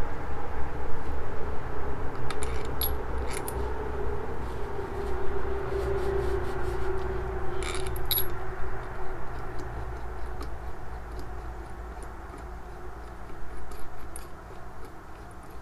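A few light metallic clicks and scrapes of hand tools and small engine parts being handled, over a steady low hum.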